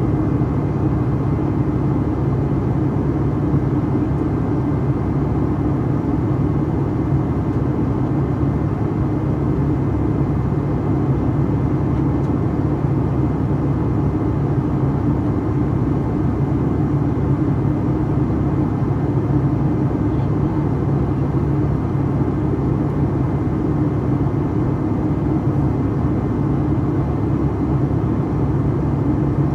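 Boeing 757-300 jet engines and airflow heard inside the passenger cabin from a seat beside the wing: a steady, even drone with low humming tones that does not change.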